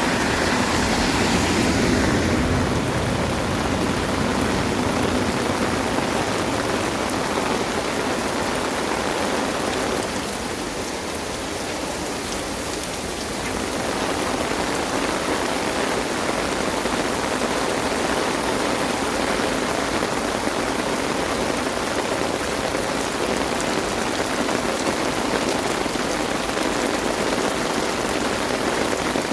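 Heavy rain pouring down in a steady hiss, slightly quieter for a few seconds near the middle.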